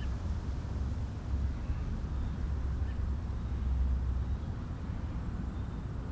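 Outdoor backyard ambience: a steady low rumble with a faint, thin high tone held throughout and a few faint, brief chirps.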